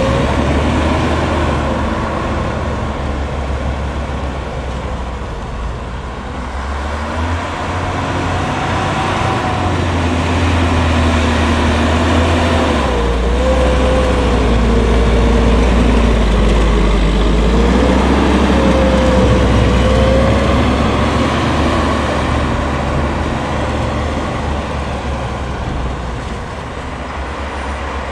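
Leitner LH500 snowcat's MAN D2866 six-cylinder diesel working under load as the machine pushes chopped maize silage with its front blade, the engine note rising and falling with the throttle.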